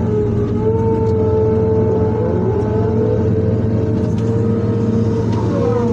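Excavator's diesel engine running steadily under load, with a strong whine over it that bends in pitch a few times as the machine is worked.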